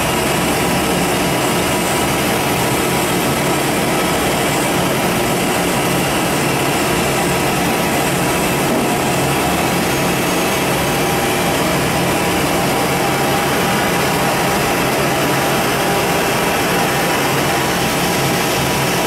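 Giddings & Lewis vertical turning lathe running under power: a loud, steady mechanical hum and hiss with no knocks or changes.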